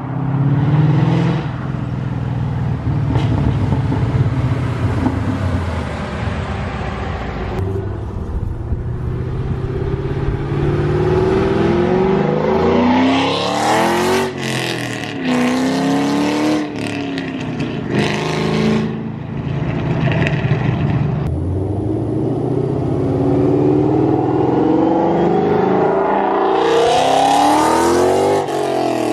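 Ford Mustang GT V8 with long-tube headers, an off-road X-pipe and Corsa Xtreme exhaust, revving and accelerating. The engine pitch climbs and drops several times, loudest in the middle and again near the end.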